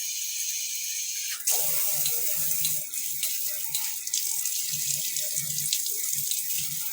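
Water spraying steadily from a shower head. About a second and a half in it gets louder and fuller, with irregular spattering as the spray strikes something.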